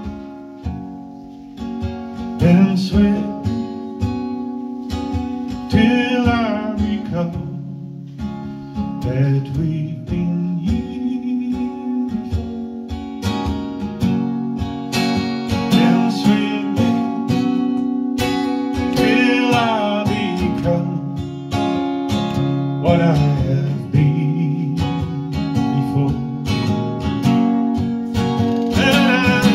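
Acoustic guitar strummed and picked through a song, quieter for about the first two seconds and then fuller, with a singing voice coming in for several phrases.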